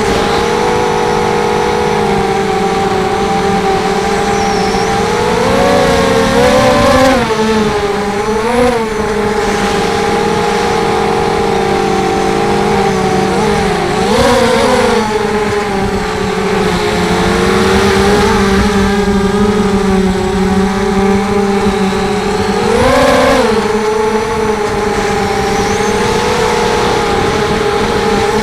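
Brushless motors and Gemfan 5045 props of a ZMR250 FPV quadcopter whining steadily in flight, rising in pitch briefly about four times as the throttle is punched.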